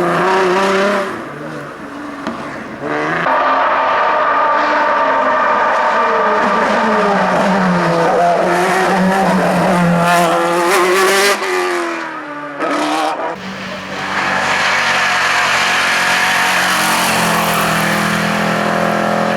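A hill-climb race car's engine revving hard through the gears, its pitch climbing with each gear and dropping at each shift. The engine note falls away twice, about a second in and again about twelve seconds in, before coming back strong and high.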